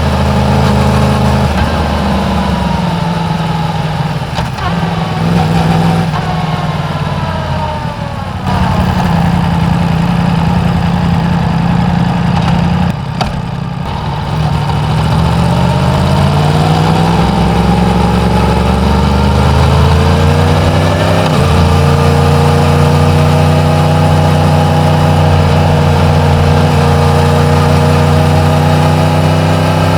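Yamaha MT-10's crossplane inline-four engine on its stock exhaust while riding: the revs fall and settle low, then rise as it accelerates, with a sudden drop in pitch about two-thirds through at a gear change, before holding a steady cruise.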